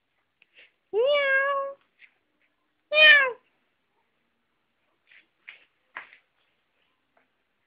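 Domestic cat meowing twice: a longer meow that rises and then holds about a second in, and a shorter, falling meow about two seconds later. A few faint clicks follow.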